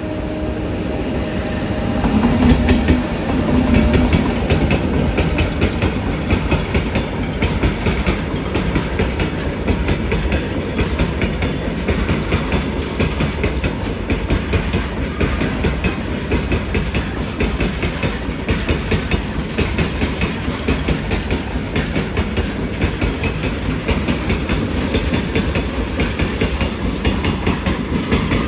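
A train passing close by, its wheels clattering steadily over the rail joints; the sound builds about two seconds in and then holds.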